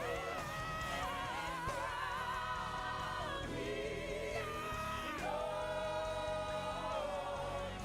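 Gospel worship singing: voices holding long, wavering notes in drawn-out phrases over a low instrumental backing.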